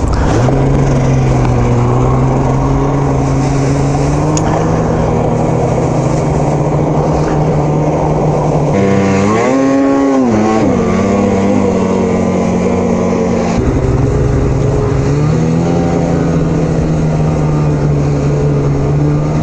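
Two-stroke mountain snowmobile engine running steadily under way. It revs up sharply and falls back about nine seconds in, settles lower a few seconds later, then picks up again.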